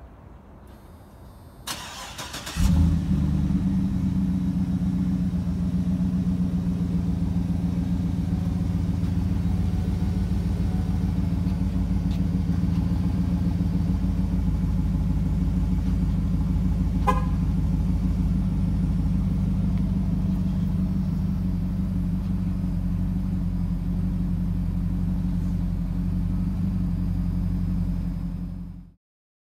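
GMC Yukon's V8 engine cranked briefly by the starter and catching about two and a half seconds in, then idling steadily until the sound cuts off near the end.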